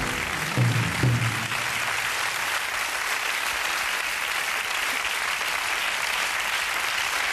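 Studio audience applauding steadily, with the last notes of music ending in the first second or so.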